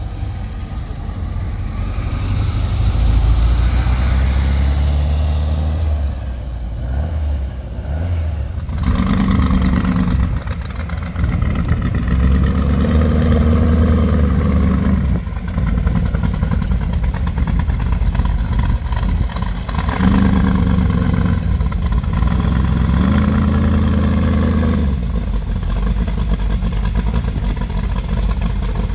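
Car engines running close by, several in turn, the low rumble swelling and dropping as they rev and pass.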